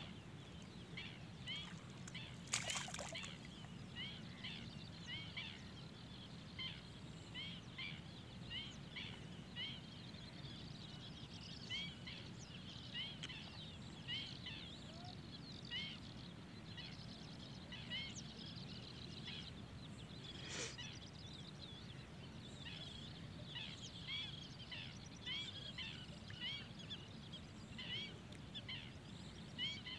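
Birds calling over the water: many short, high chirps repeating several times a second, over a steady low background noise. Two sharp clicks stand out, one a few seconds in and one about two-thirds of the way through.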